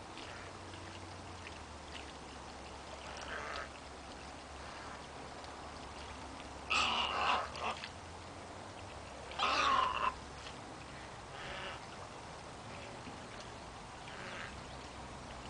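Wading birds calling: two loud calls about seven and nine and a half seconds in, each lasting about a second, with a few fainter short calls before and after.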